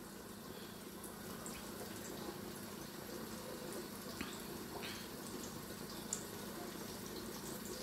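Oil heating in a large pot on a gas hob: a faint steady hiss with a low hum, and a few soft ticks.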